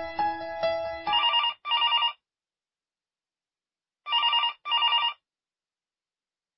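Telephone ringing in a double-ring pattern: two short rings about a second in, a pause of about two seconds, then two more short rings.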